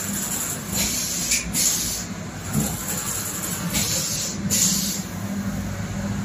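Automatic L-type sealing and shrink-wrapping machine running: a steady hum with short hissing bursts that come and go every second or two.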